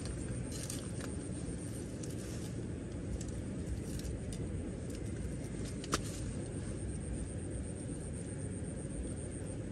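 Small wood fire being tended under a clay cooking pot: faint clicks and snaps of twigs, one sharper snap about six seconds in, over a steady low rumble.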